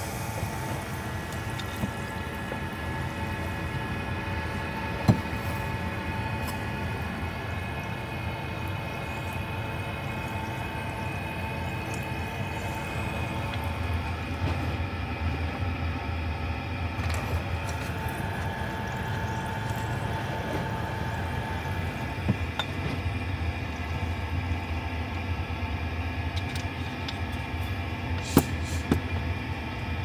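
Steady low rumble with faint held tones, heard inside a parked car, broken by a few light knocks.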